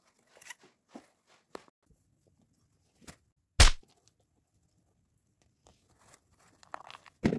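Hands handling a cardboard toilet-paper tube stuffed with tissue paper: faint rustles and light taps, one sharp loud bump about halfway through, then more rustling and another loud knock near the end.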